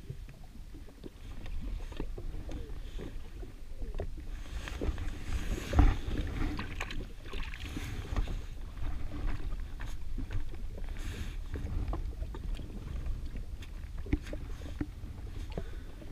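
Low wind rumble on the microphone and water washing against the jet ski's hull, with scattered small clicks and knocks from a spinning reel and rod being handled.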